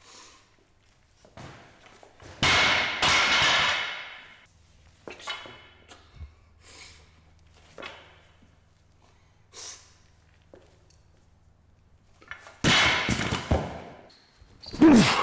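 A loaded strongman axle bar with bumper plates is dropped onto rubber drop pads about twelve and a half seconds in, giving a heavy thud followed by a rattle of plates. Earlier, about two seconds in, the lifter lets out a loud, forceful breath lasting a couple of seconds.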